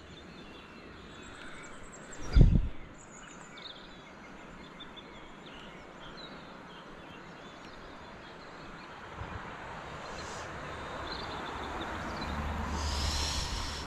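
Small birds chirping over a steady outdoor hiss, with a single dull knock about two seconds in and a rustling noise that builds over the last few seconds.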